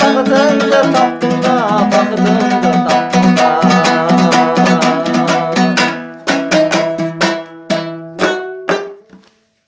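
Dombyra strummed in a fast, steady rhythm as the closing instrumental of a song. From about six seconds in, the strokes thin out to a few separate ringing strums, then stop shortly before the end.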